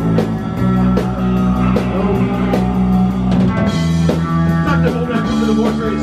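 Rock band playing live on electric guitars, bass guitar and drum kit, with a steady drumbeat. A cymbal crash and a chord change come about two-thirds of the way in.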